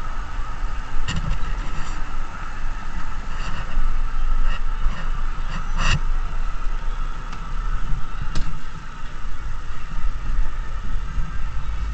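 Mountain coaster cart rolling fast down its steel track: a steady rolling hum with low wind rumble on the microphone, broken by a few sharp clacks, the loudest about six seconds in.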